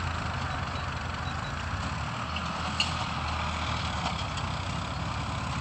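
A vehicle engine running steadily at an even low pitch, with a single sharp click near the middle.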